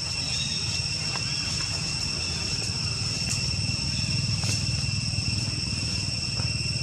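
A steady insect chorus holding several even, high pitches, over a continuous low rumble, with a few faint clicks.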